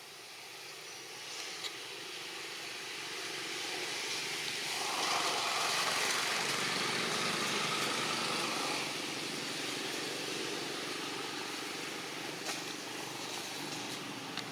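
A motor vehicle passing by: a steady engine and road noise that grows louder toward the middle and then slowly fades.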